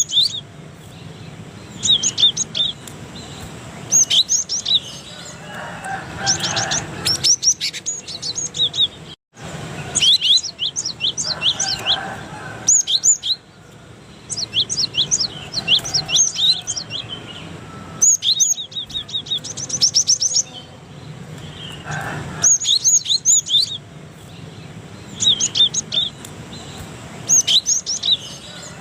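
Cinereous tit singing: short bursts of rapid, high repeated notes every second or two, with a momentary dropout about nine seconds in.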